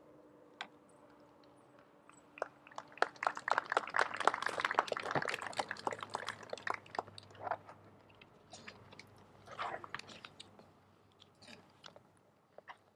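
Handling noise on a handheld microphone as it is taken up and adjusted: a dense run of clicks and rubbing, thickest in the middle, then a few scattered clicks.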